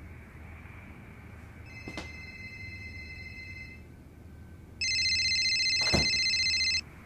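Electronic telephone ringing, two rings about two seconds long with a short gap between them, the second ring much louder. A sharp thud lands near the end of the second ring.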